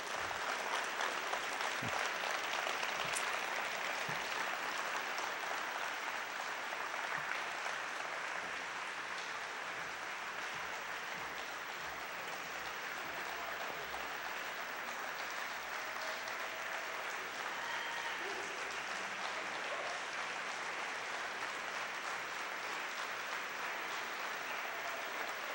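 Audience applauding steadily after a speech, sustained clapping from a roomful of people, with a few faint voices showing through later on.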